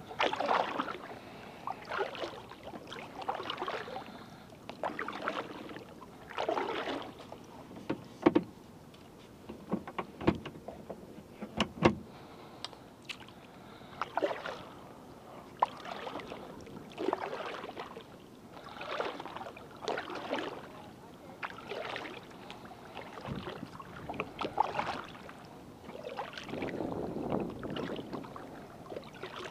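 Kayak paddle strokes: the blades dip and pull through the water on alternating sides about once every second or so, each stroke a splashing swish. A few sharp knocks come in between.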